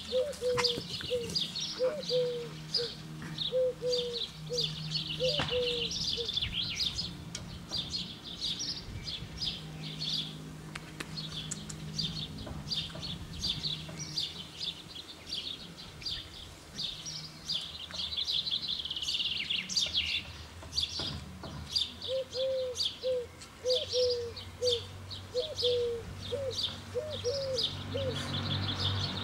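Garden birds singing, a dense chorus of quick high chirps and trills that never lets up. A run of short low notes repeats about twice a second at the start, stops, and comes back in the last third.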